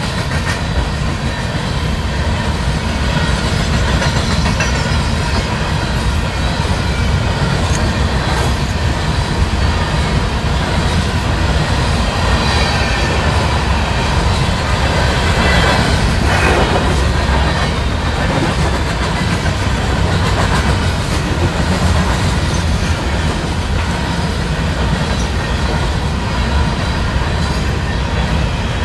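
Freight train hopper cars rolling past on steel wheels: a steady, loud rail noise with clicking of wheels over the rail joints.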